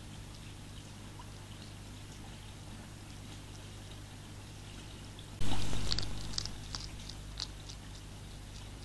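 Faint scattered clicks of a hedgehog crunching dry food from a feeding tray, over a steady low electrical hum. About five and a half seconds in, a sudden loud burst of noise fades away over about a second, and the crunching clicks then come more clearly.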